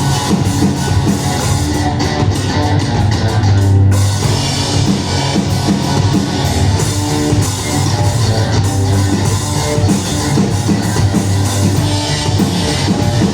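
A rock band playing live: electric guitars and a drum kit in a heavy rock song.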